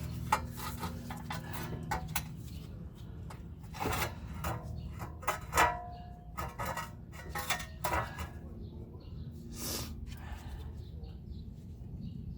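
Metal brake parts and hand tools clinking and knocking during caliper removal, with scattered clicks and one louder ringing clink a little past halfway, over a steady low hum.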